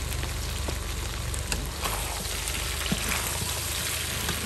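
Pieces of eel sizzling in hot oil in a steel wok: a dense, steady hiss with scattered sharp pops.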